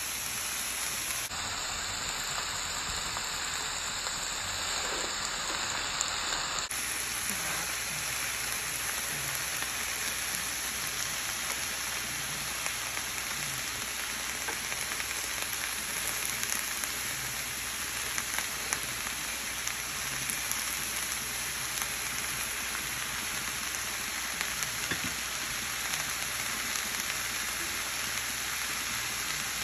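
Sliced vegetables (okra, eggplant, long beans and bell pepper) frying in oil in a large skillet: a steady sizzling hiss, with a few light clicks of a spoon stirring.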